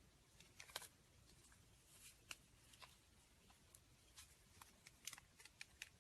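Faint, scattered sticky clicks and crackles of slime being handled, a few irregular pops each second.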